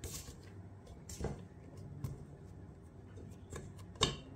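Silicone spatula scraping and knocking against a stainless steel mixing bowl while gathering soft dough: a handful of separate short scrapes and clicks, the loudest about four seconds in.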